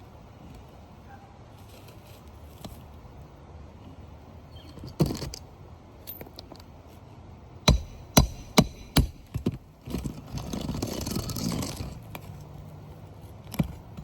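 Hand roofing tools working on asphalt shingles: a few sharp taps, four of them in quick succession near the middle, then a couple of seconds of scraping, and one more tap near the end.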